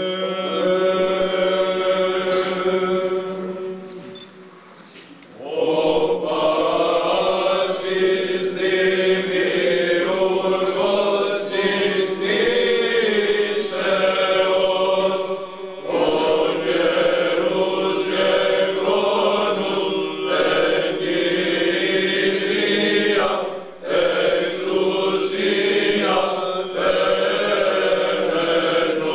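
Greek Orthodox Byzantine chant sung in long drawn-out phrases over a steady held drone (the ison), with short breaths between phrases about five seconds in and again near the middle and late on.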